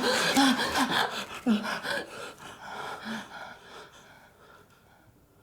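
A woman gasping and whimpering in distress: several short strained cries close together, one more a little later, dying away about four seconds in.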